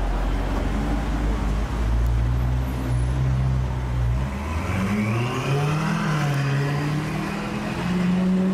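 Ferrari mid-engine V8 sports car idling low, then accelerating away about four seconds in: the engine note rises, drops briefly at a gear change, and holds at a higher pitch.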